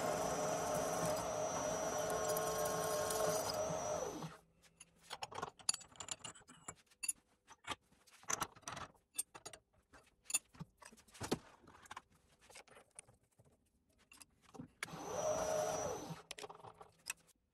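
A machine tool's electric motor and spindle run steadily with a fixed whine, then are switched off about four seconds in and wind down. Light metallic clicks and rattles follow, as metal parts and tools are handled. Near the end the machine is run up briefly and winds down again.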